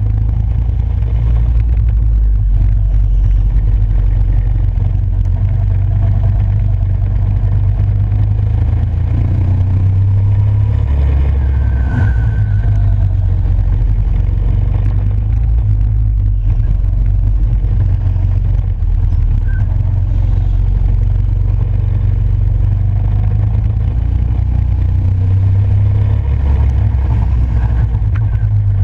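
Go-kart engine heard from the kart itself, running hard as it laps the track. The engine note drops and picks up again a couple of times, as it would when the driver eases off for corners and accelerates out.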